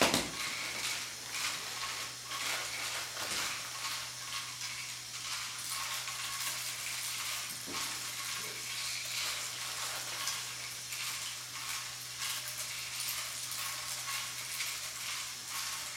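Dense, continuous rattle of many tiny LEGO plastic parts tumbling in the LEGO model's turning mixer drum, over a steady low hum from its Power Functions motor.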